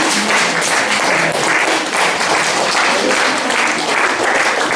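A crowd applauding: dense, steady clapping, with voices underneath.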